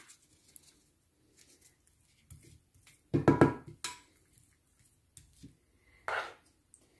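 Metal spoon spreading béchamel sauce over lavash in a ceramic baking dish, with soft scraping and clinks against the dish and saucepan; the loudest clatter comes about three seconds in, and a smaller one about six seconds in as the spoon goes back to the saucepan.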